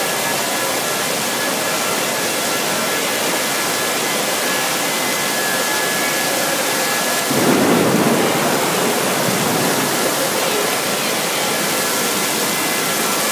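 Torrential rain pouring down onto and through a station's glass roof: a loud, steady rushing hiss of falling water. About seven seconds in, a deeper rumbling swell rises over it and fades within a couple of seconds.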